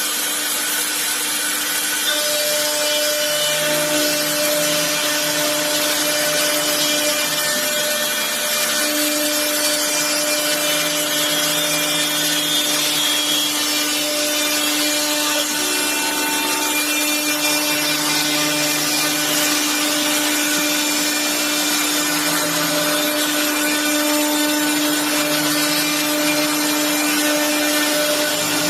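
CNC router spindle running with a steady whine while its cutter mills wood, over a continuous hiss of cutting.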